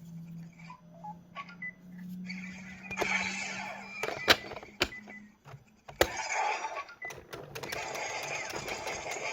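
Electronic sound effects from a Zenkaiger Geartlinger transformation-gun toy, with a low steady hum in the first half and bursts of effect sound later. Sharp plastic clicks from working the toy's mechanism come three times, about four, five and six seconds in.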